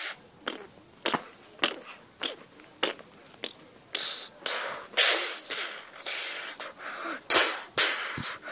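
Short bursts of breathy, hissing noise, about two a second, louder and longer from about four seconds in.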